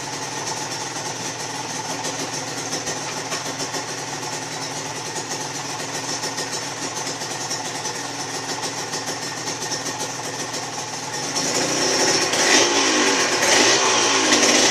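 Honda NSR 150's two-stroke single-cylinder engine running through a Tyga exhaust. It idles steadily, then is revved from about 11 seconds in, the pitch rising and falling over several throttle blips near the end.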